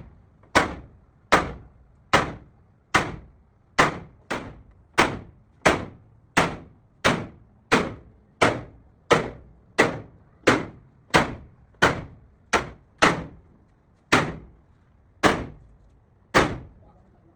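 Repeated hammer blows striking sheet steel, evenly paced at about three every two seconds, each ringing briefly; the rhythm slows for a couple of beats about three-quarters of the way through.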